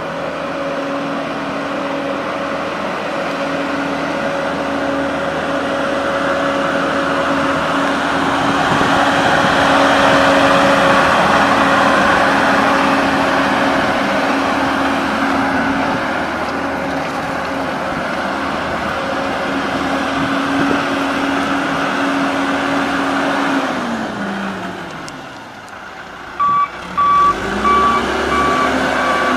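John Deere 310 backhoe loader's diesel engine running steadily under load, its pitch falling as it slows down near the end. It then picks up again as the reversing alarm starts a steady series of beeps.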